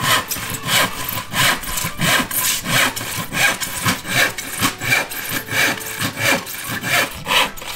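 Hand saw cutting through a sheet of wood with steady back-and-forth strokes, about one and a half strokes a second.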